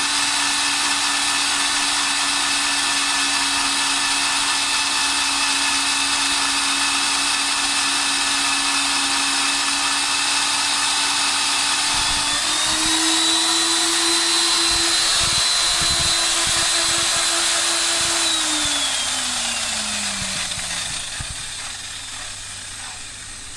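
Kong Sung KSCD-PW14 concrete core drill's motor running steadily. About twelve seconds in its pitch steps up a little; about eighteen seconds in it is switched off and spins down, the whine falling and fading.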